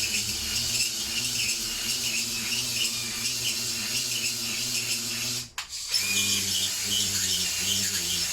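Battery drill spinning a cylinder hone in the Lister D engine's cylinder bore: a steady motor hum with a high scraping rasp of the stones on the bore wall. It stops briefly about five and a half seconds in and starts again. The honing clears a wear mark from the top of the cylinder.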